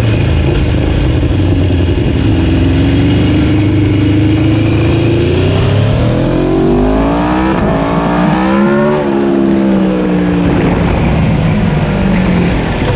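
Aprilia Tuono motorcycles ridden hard together, their engines heard over constant wind and road noise. The engine pitch climbs slowly, then more than one engine rises steeply under acceleration and drops back about nine seconds in.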